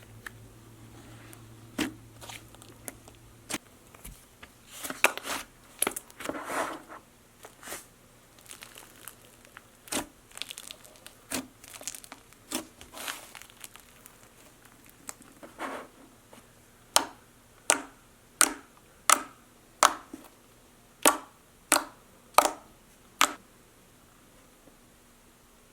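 Slime being worked by hand, crinkling and crackling in irregular bursts. Near the end comes a run of about nine sharp pops, a little under a second apart.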